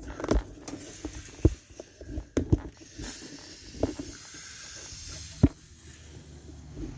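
Scattered metallic knocks and clicks from hand work on a rear drum brake assembly, about half a dozen irregular strikes, with a short hiss about three seconds in.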